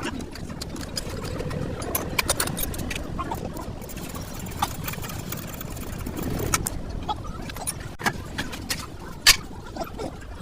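Steady low engine rumble with scattered short metallic clinks and knocks, the sharpest about nine seconds in.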